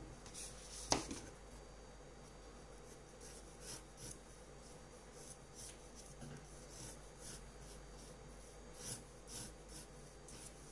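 Pencil drawing on paper: faint, irregular short scratchy strokes, with one sharp tick about a second in.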